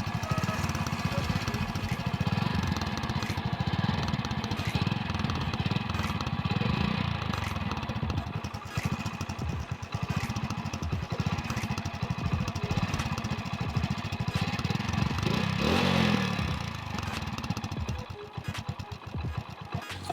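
Motorcycle engine running with a razor blade taped over its exhaust silencer, a fast steady exhaust putter; it revs up briefly about fifteen seconds in, then the sound thins out near the end. The blade does not give it the thumping note of a Royal Enfield Bullet.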